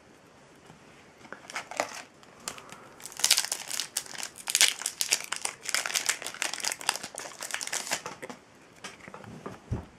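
A Yu-Gi-Oh booster pack's wrapper crinkling and tearing as it is opened, a dense crackly rustle that starts about a second and a half in, is heaviest in the middle and dies away near the end, followed by a soft thump.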